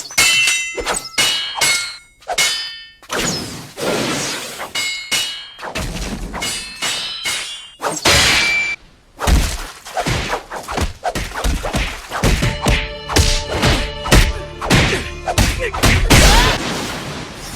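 Anime fight sound effects: a rapid, dense series of hits, thuds and whacks, several of them trailing a ringing tone like sword clashes.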